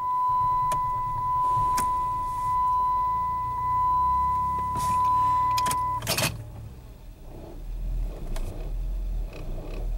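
A loud, steady electronic beep held for about six seconds, then stopping with a heavy knock. Under it the Routan's engine is running and surging, the symptom the mechanic puts down to a sticking torque converter clutch.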